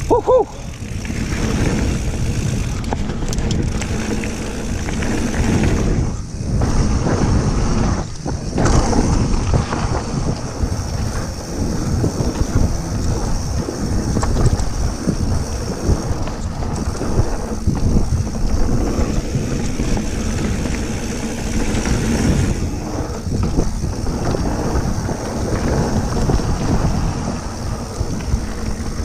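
Wind buffeting the camera microphone over the rumble and rattle of a mountain bike's tyres and frame on a fast downhill dirt trail. A shout of "woo-hoo" comes at the very start.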